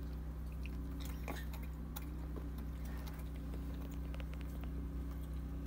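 Baby goat chewing alfalfa pellets from a hand, heard as scattered small clicks over a steady low hum.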